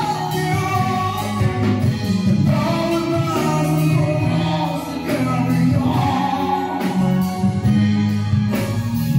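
Live band playing a slow rock ballad through a PA: electric guitars, bass guitar and drums keeping a steady beat, with a woman singing long held notes over it.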